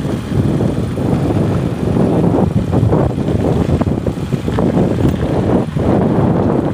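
Wind buffeting a phone microphone: a loud, gusty, low rumble that rises and falls unevenly.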